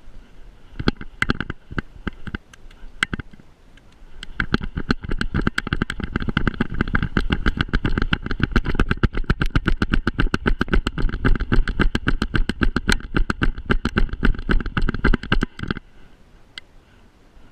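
Fast rattling and knocking of a GoPro camera in a harness on a running corgi's back, jolted with each stride. A few separate knocks first, then a dense, fast rattle that runs for about eleven seconds and stops suddenly.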